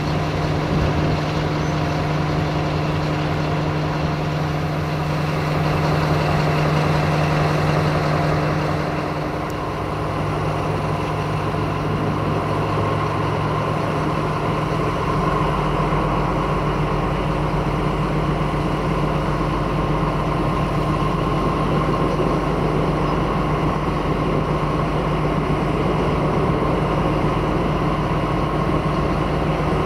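Diesel locomotive engines running steadily: first a 060-DA (ST43) diesel-electric locomotive with its Sulzer 12LDA28 engine, then, from about ten seconds in, a MÁV M41 diesel-hydraulic locomotive idling steadily at the head of a freight train.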